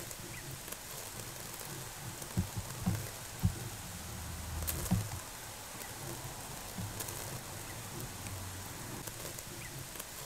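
Homemade irrigation sprinklers spraying water, a steady hiss with droplets pattering on the crop, broken by a few short low thumps about a quarter to halfway in.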